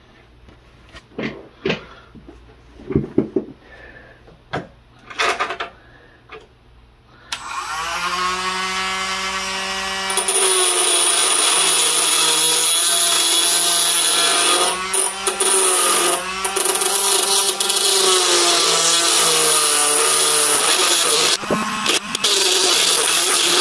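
A few short knocks of handling, then a Dremel rotary tool switches on about seven seconds in and whines up to speed; about three seconds later its metal cutting disc bites into the knife blade, a loud grinding of metal that runs on with brief breaks.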